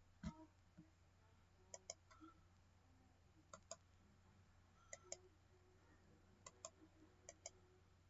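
Faint computer mouse clicks in quick pairs, about five pairs spread through a quiet room, over a steady low hum. A soft low thump comes right at the start.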